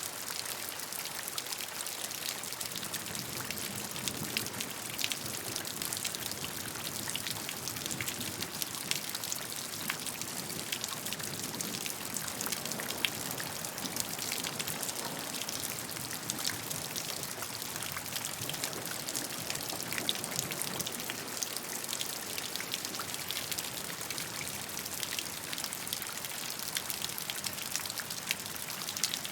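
Steady rainfall: an even hiss of rain with many individual drops pattering on a surface.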